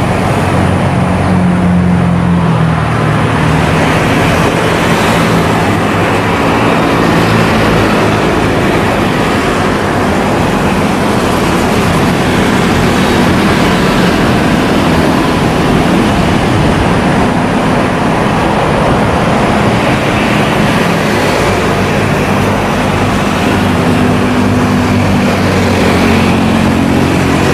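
Jet engines of an Airbus A320-216 airliner (CFM56-5B turbofans) running at taxi power as the aircraft taxis: a loud, steady rushing hum with a low drone underneath.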